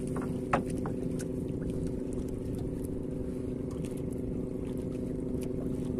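A boat engine idling steadily, a constant even hum, with one sharp click about half a second in.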